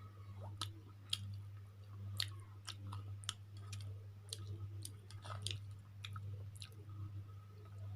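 A person chewing a mouthful of chicken chow mein, with wet mouth smacks and clicks at irregular intervals over a steady low hum.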